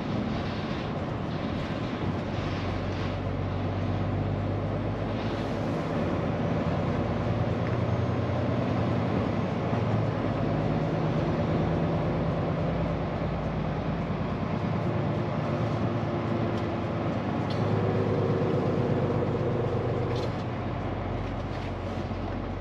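Scania P410 truck's diesel engine heard from inside the cab while driving, over steady road and tyre noise. The engine note steps up and down several times.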